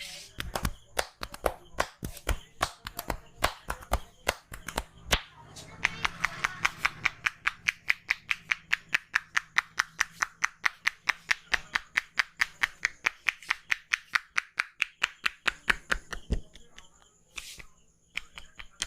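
A barber's hands striking a person's head in a rhythmic tapping massage. The strikes come irregularly at first, then settle into a fast, even run of about five a second for some ten seconds, and break off briefly near the end.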